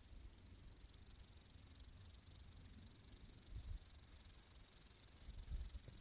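Meadow insects such as crickets chirping: a continuous high-pitched shrill with a fast, even pulsing, over a faint low rumble.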